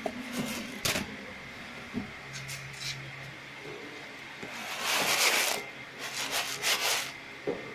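Dry dehydrated garlic slices rustling and sliding in a plastic tray as the tray is moved, with a few sharp knocks of the tray. The rustling comes in bursts, loudest a little past halfway through, over a faint steady hum.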